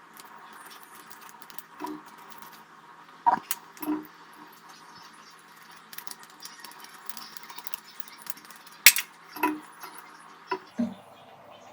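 Scattered light metallic clinks and knocks of small tap parts and tools being handled, about seven in all, over a faint steady background; the sharpest click comes about nine seconds in.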